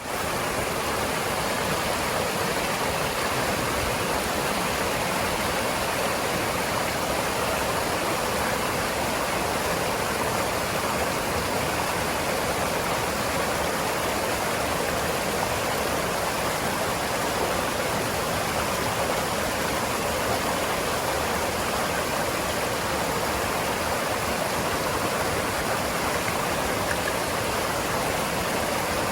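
Steady rush of a mountain stream's water running over rocks, unbroken.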